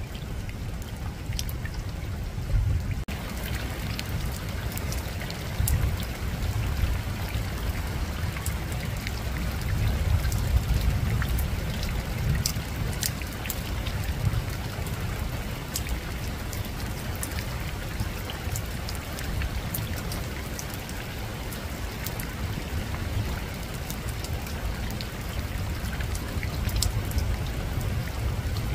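Soft rain falling on a rooftop: a steady patter with many separate drops ticking, over a constant low rumble. The patter grows fuller about three seconds in.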